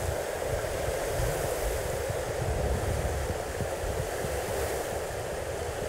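Steady rushing of a fast-flowing river, with gusts of wind rumbling on the microphone.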